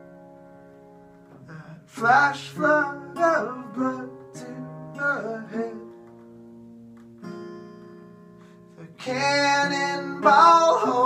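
Two acoustic guitars playing slow, ringing chords. Bursts of wordless singing come in about two seconds in and again near the end.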